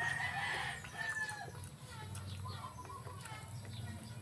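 A rooster crowing once; the call is already under way and ends about a second in.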